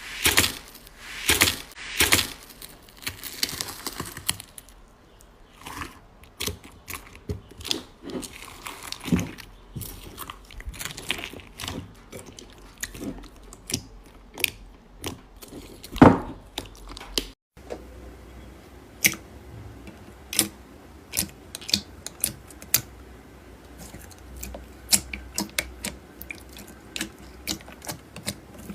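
Slime being squished, poked and stretched by hand: irregular sticky, wet clicks, pops and crackles. A short break comes about two-thirds through, after which the clicks turn crisper.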